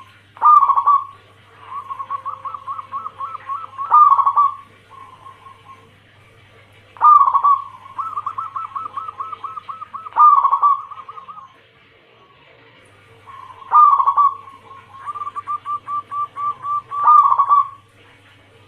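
Zebra dove (perkutut) of the Bangkok crossing cemani type singing its cooing song three times. Each phrase opens with a loud note, runs into a fast string of short coos and ends on a loud drawn-out note.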